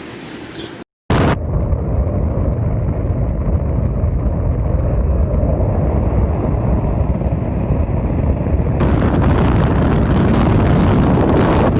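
Storm-force wind of a sandstorm battering the microphone: a loud, steady, deep rumbling rush, broken by a short dropout about a second in. From about nine seconds in it turns harsher and hissier.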